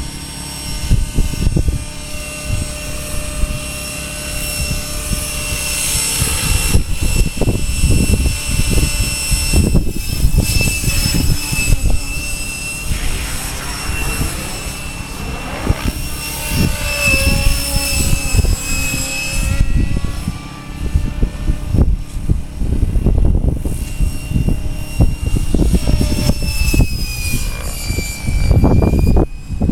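Radio-controlled model helicopter flying, its rotor and drive whine holding a steady high pitch that dips and rises now and then as it manoeuvres, over an irregular low rumble.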